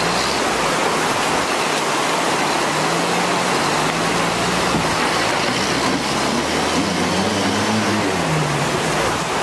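An off-road SUV's engine labouring in mud: it holds steady revs for a few seconds, revs up about seven seconds in, then drops back. Throughout there is a loud, steady rushing noise.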